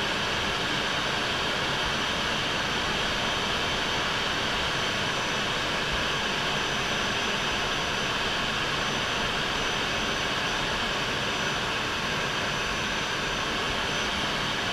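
MiG-29 jet fighter in flight: a steady, even rush of engine and airflow noise with a faint high whine running through it.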